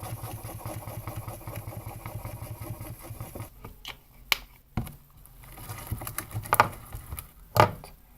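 A highlighter pen is scribbled fast and evenly over clear slime spread on a tabletop. The rubbing stops about three and a half seconds in, and a few sharp clicks and sticky crackling pops follow as the slime is handled.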